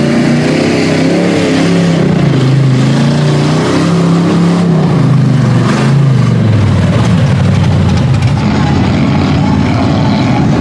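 Lifted Chevrolet square-body mud truck's engine revving hard as it churns through deep mud, the pitch rising and falling several times, then dropping about seven seconds in.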